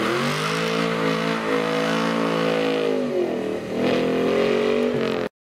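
Ford Mustang engine accelerating hard as the car drives past. The revs climb, hold, dip briefly about three seconds in, then pick up again before the sound cuts off suddenly near the end.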